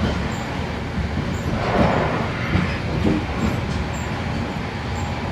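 Limited express train running along the line, heard from inside the passenger car: a steady rumble of wheels on rail, with a brief rush of noise about two seconds in.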